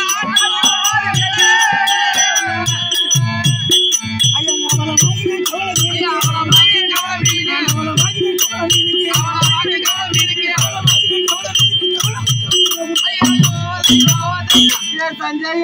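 Therukoothu street-theatre music: a drum beats about twice a second under sharp hand-cymbal clicks and a steady high ringing, with a man singing over it near the start. The drumming thickens briefly, then stops shortly before the end.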